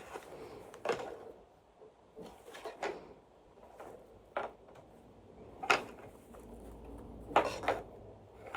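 A few short, separate knocks and rustles from hands handling plush toys.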